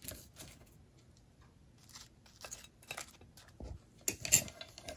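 Light clicks and taps of chopsticks and pieces of crispy fried tofu being set down on a ceramic plate of rice noodles, a little louder about four seconds in.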